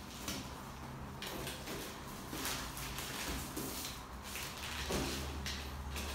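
Plastic wrapping of a rolled, compressed mattress rustling and crinkling as it is slit open with a utility knife, in a series of short scratchy strokes.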